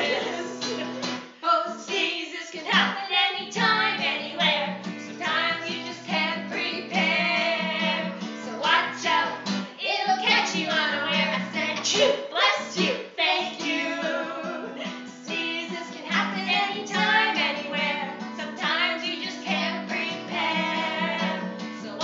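Strummed acoustic guitar with women singing a song.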